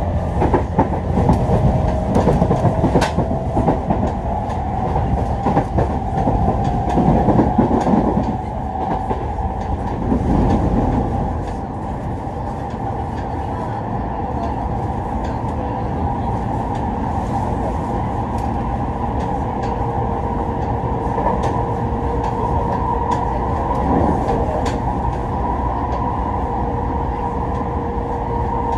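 Sotetsu 10000 series electric train heard from inside the car, its original Mitsubishi IGBT-VVVF inverter and traction motors whining with a tone that slowly climbs as the train accelerates away from a station. The wheels rumble and click over the rail joints. About 12 seconds in it gets quieter and carries on at a steadier, lower whine.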